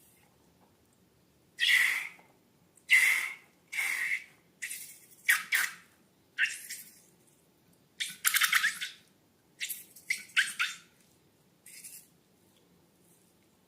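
Balloons and slime being handled: about a dozen short squeaky, hissing squelches at uneven intervals, the last one faint.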